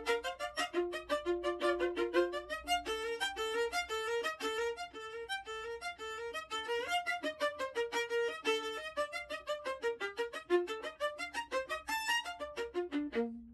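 Violin music: a quick melody of short notes that settles onto one low held note near the end.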